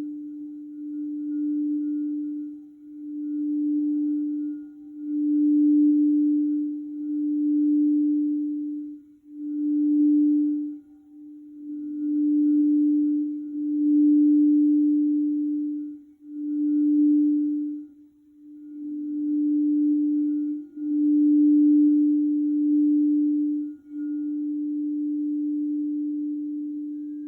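A quartz crystal singing bowl sounding one steady, low, sustained tone that swells and fades in waves about every two seconds, with a longer, slowly fading stretch near the end.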